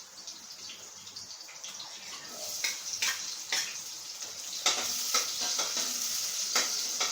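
Onion and chili frying with garlic in hot oil in a pan: a sizzle that grows louder about two seconds in and again near five seconds, with the clicks and scrapes of a spoon stirring against the pan.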